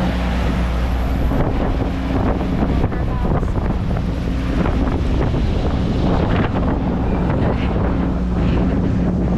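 Strong wind buffeting the microphone in a loud, steady rush with irregular gusts, over a constant low hum.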